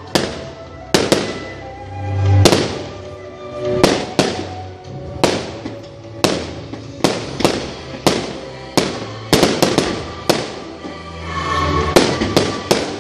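Aerial firework shells bursting in a rapid series of sharp bangs, about one or two a second, with quick clusters in the second half. Music plays underneath the bangs.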